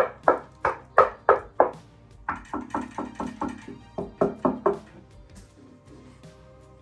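Knuckle raps on the side of a SVEN PS-1900 party speaker's cabinet: quick knocks about three a second in three short runs, stopping about five seconds in. They test whether the enclosure is plastic or wood, and it is judged to be plywood.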